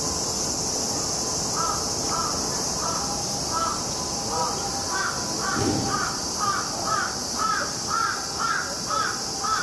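Summer cicadas buzzing steadily. Over them, from about a second and a half in, a run of short calls repeats about twice a second and grows louder in the second half.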